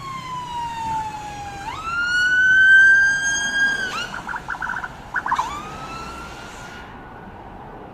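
A tourist bus's "telolet basuri" musical air horn playing: a long downward pitch slide, a sharp rise to a held high note, a quick chopped warble about four to five and a half seconds in, then another rise to a held note that stops about seven seconds in.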